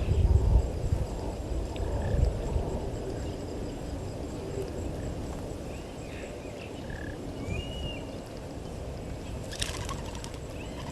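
Outdoor bush ambience: a low rumbling noise that slowly fades, with a few faint bird chirps and a short gliding call past the middle, and a brief crackle near the end.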